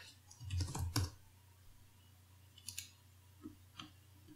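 Faint computer mouse clicks: a few separate short clicks, the loudest cluster about a second in, over a low steady hum.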